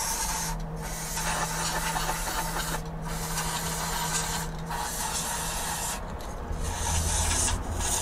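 Aerosol can of Würth cavity wax spraying through its thin extension tube into the car's floor cavities: a steady hiss, cut by about five short breaks as the nozzle is released and pressed again.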